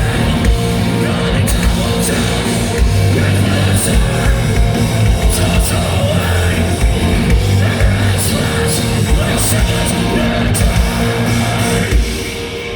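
Live metalcore band playing loud and dense: distorted electric guitars, bass and drum kit, with vocals over them. The band drops out briefly near the end.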